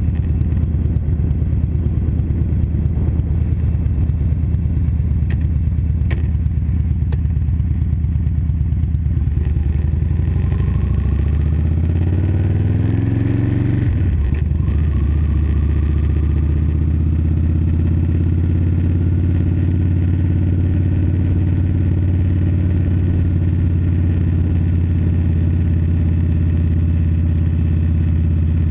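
2012 Victory Vegas 8-Ball's V-twin engine running at low street speed, heard from a handlebar-mounted camera. Its pitch climbs for a few seconds near the middle as it accelerates, drops sharply, then settles to a steady note.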